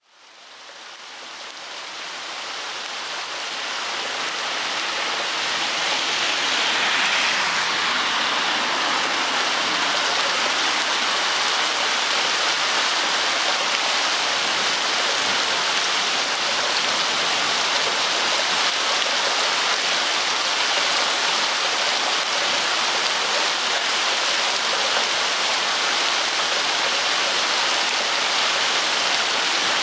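Steady rain falling, a dense even hiss that fades in over the first few seconds and then holds level.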